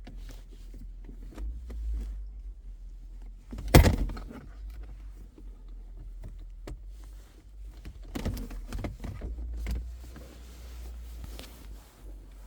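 Handling of a phone and a USB-C to HDMI cable as the cable is plugged into the phone: scattered clicks and rustles, with one sharp knock about four seconds in, over a low steady hum.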